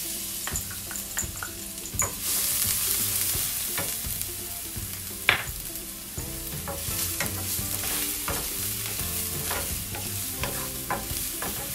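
Minced garlic sizzling in hot oil in a nonstick frying pan as a wooden spatula stirs and spreads it, knocking lightly against the pan. The sizzle grows louder about two seconds in, and one sharper knock comes a little past the middle. This is the garlic frying toward golden as the first step of a tomato sauce.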